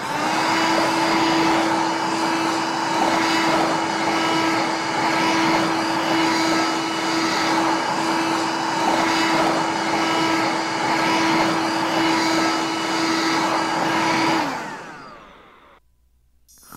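Toy vacuum cleaner running with a steady whine over an airy hiss. About fourteen seconds in it is switched off, and the motor winds down, falling in pitch as it fades away.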